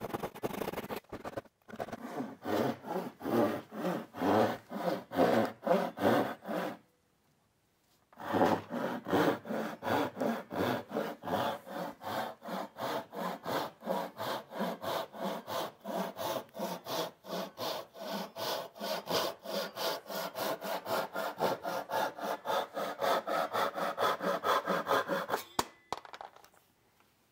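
Japanese ryoba pull saw with large, coarse teeth cutting through a wooden board in quick, even strokes. The sawing pauses briefly about seven seconds in, then runs on steadily and stops shortly before the end.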